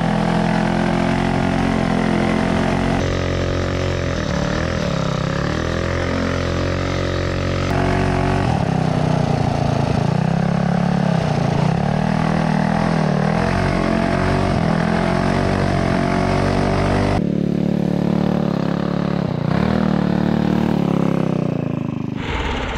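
Small single-cylinder go-kart engine running hard off-road, its pitch rising and falling as the throttle is worked, with sudden jumps in the sound where the footage is cut.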